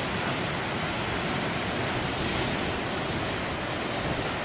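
Ocean surf: big waves breaking and washing in, a steady, even rush of water.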